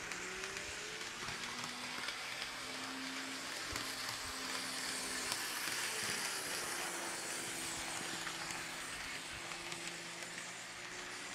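Kato N scale GE ES44AC model locomotive running along the track: a steady hiss of the motor and wheels on the rails with a faint motor hum and light clicks, swelling as it passes close about halfway through and easing off after.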